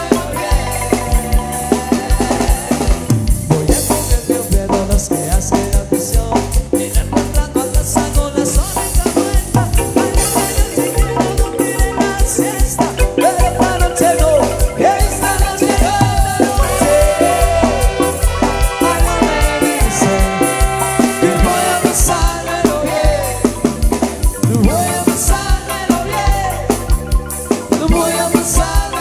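A marimba orquesta playing amplified dance music live: marimba melody over a drum kit with a steady, driving beat.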